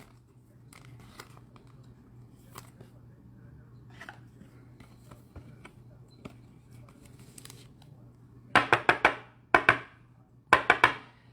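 Trading cards and their packaging being handled: faint light clicks and rustles, then about eight seconds in two short runs of loud crinkling as packaging is opened. A low steady hum lies under it.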